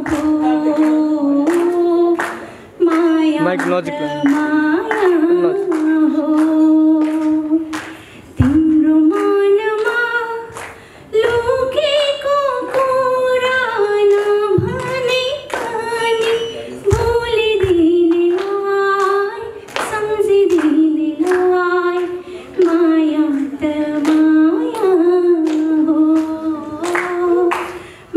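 A young woman singing a song solo, in long held notes with short breaks between phrases.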